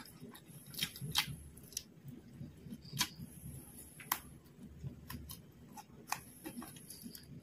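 Close-miked mouth sounds of a person chewing fried quail and rice, a soft continuous chewing with a sharp click or smack every second or so, the loudest about a second in.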